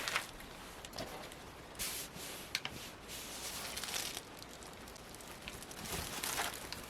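Fabric rustling in a few short swishes as a cloth uniform jacket is handled and turned over, with a couple of faint clicks.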